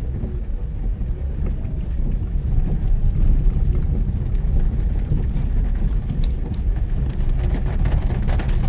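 Mitsubishi Pajero Mini driving on a wet forest road in heavy rain: a steady low rumble of engine and tyres. Near the end a rapid crackle of spatters and small impacts joins in.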